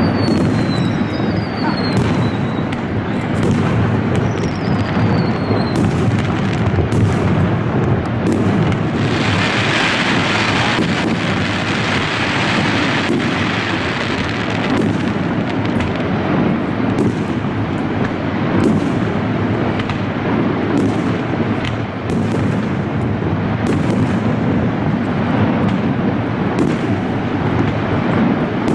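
Aerial fireworks going off in a steady series of booms and sharp bangs over a continuous rumble. Two falling whistles sound in the first few seconds, and a stretch of louder hissing crackle comes from about nine to fourteen seconds in.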